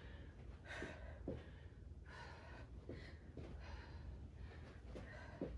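A woman breathing hard from exertion mid-set in a leg workout, with heavy, gasping breaths about once a second and a few soft knocks between them.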